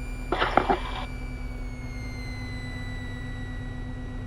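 Cirrus SR20 single-engine piston aircraft's engine and propeller running steadily at taxi power, heard as a low drone through the cockpit intercom, with a thin high whine that slowly falls in pitch. A short burst of noise about half a second in.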